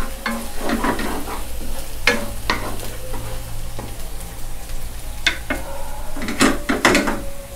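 Chopped bird's-eye chilies and garlic sizzling in oil in a nonstick wok, stirred with a wooden spatula that scrapes and knocks against the pan several times, most sharply near the end.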